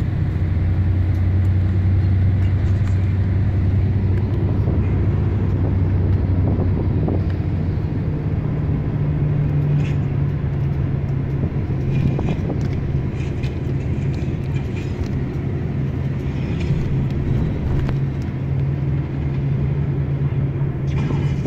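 Hino bus's diesel engine and road noise droning steadily inside the passenger cabin while under way. The low engine hum shifts higher in pitch about eight seconds in.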